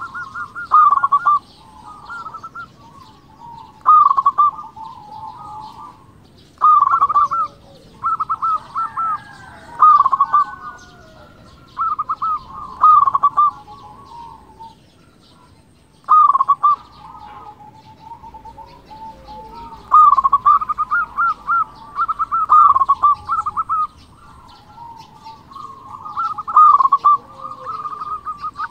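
Zebra dove (perkutut) cooing: repeated phrases of rapid staccato notes, each a second or two long, separated by short pauses.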